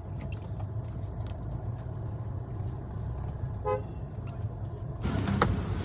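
Road traffic with a steady low engine and road rumble, and one short car-horn beep a little past the middle. The noise grows louder near the end.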